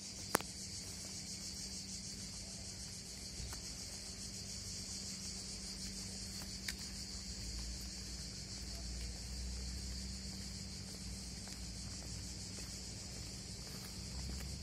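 Steady chorus of cicadas: a continuous high, even buzz with no break. A faint low rumble joins about halfway, and there are a couple of light clicks.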